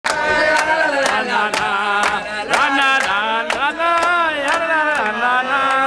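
People singing a song to a clapped beat, with hand claps about twice a second.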